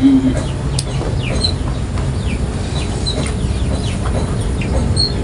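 Chickens clucking in short, repeated calls over a steady low rumble.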